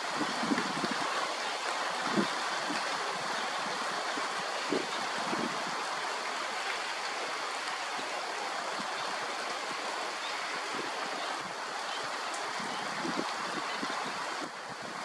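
Steady rain falling on shallow open water: an even hiss, with a few soft low thumps scattered through it.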